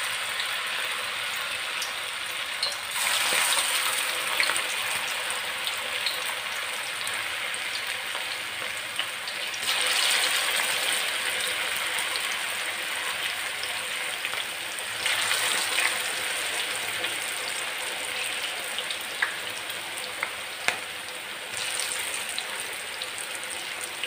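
Battered cabbage pakoras deep-frying in hot oil, a continuous sizzle. It swells louder four times, about 3, 10, 15 and 21 seconds in, as more pakoras go into the oil one by one, and eases back in between.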